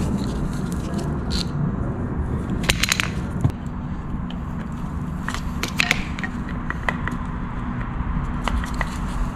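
Small metallic clicks and clinks, in scattered clusters, as a Torx screwdriver and the sensor's screws are worked against the metal fuel filter canister to free the fuel sensor. A steady low hum runs underneath.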